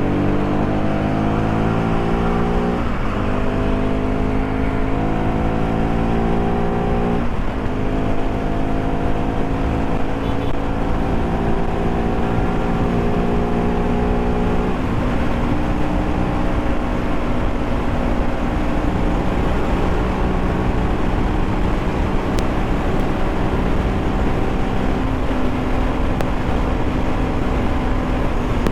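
Bajaj Pulsar RS200's single-cylinder engine, breathing through a K&N air filter, pulling hard up through the gears. The pitch climbs in each gear and drops at three upshifts, about 3, 7 and 15 seconds in, then holds fairly steady at cruising speed.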